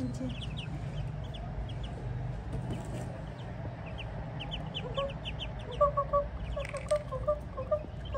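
Ducklings peeping: runs of short, high, rising chirps. From about five seconds in, a lower series of short clucking calls from another bird joins them, over a steady low hum.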